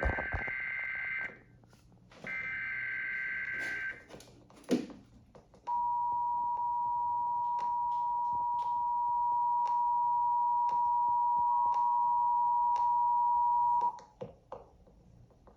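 Emergency Alert System broadcast tones heard over the radio. First come two bursts of the SAME header, a buzzy, modem-like data screech about a second and a half each. Then the steady two-tone EAS attention signal sounds for about eight seconds and cuts off.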